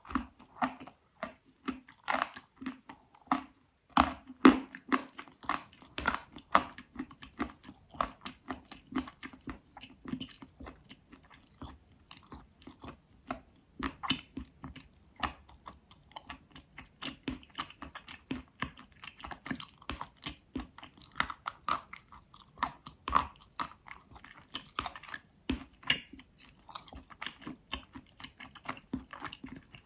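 Pieces of chalk being bitten and chewed close to the microphone: a steady run of irregular dry crunches, several a second.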